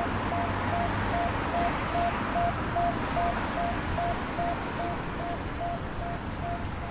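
Audible pedestrian crossing signal beeping steadily, about two and a half short beeps a second, over the hum of passing road traffic.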